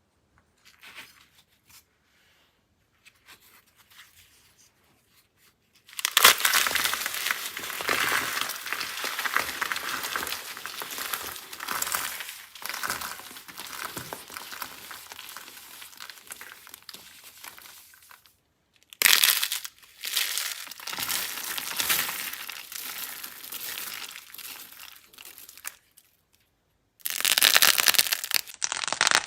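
Dry, crumbly soap being crushed, giving a dense crisp crackling. It comes in three long stretches with short pauses between, after a few faint light crackles at the start.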